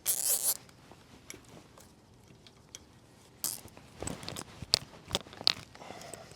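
Plastic cable ties being pulled tight: a quick rasping zip right at the start and another about three and a half seconds in, followed by a scatter of small sharp clicks and handling noises.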